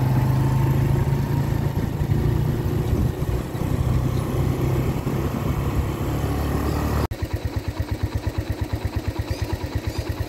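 Small motorcycle running on the road, a steady engine note mixed with wind noise. About seven seconds in it cuts off abruptly and gives way to an engine idling with an even pulse, about ten beats a second.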